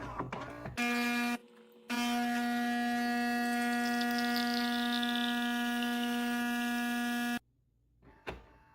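The built-in ceramic burr grinder of a Philips 2200 fully automatic espresso machine grinding coffee beans for a strong cup, its motor giving a steady whirring hum. It runs briefly, pauses for half a second, then runs for about five more seconds and stops abruptly.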